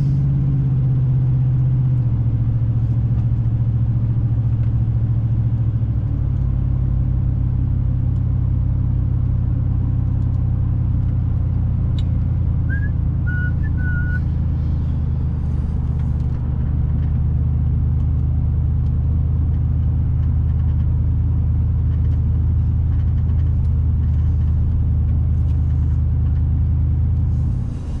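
Car engine and road noise droning steadily, heard from inside the cabin while driving. The engine note steps down in pitch twice in the first six seconds, then holds steady.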